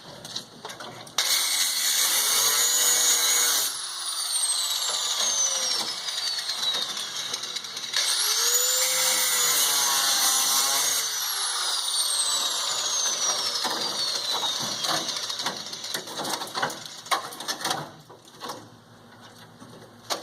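A handheld power tool cutting at rusted truck body metal. It runs in two loud bursts of a few seconds each, its pitch rising as it spins up and falling as it slows, with quieter, rougher cutting between and after.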